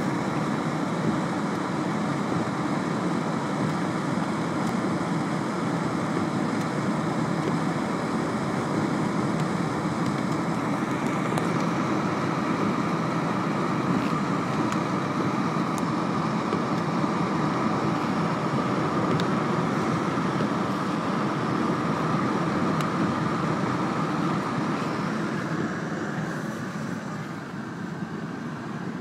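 Rain and wet-road noise heard inside a moving car's cabin: a steady hiss of rain on the car and tyres running through water on the road, easing a little near the end.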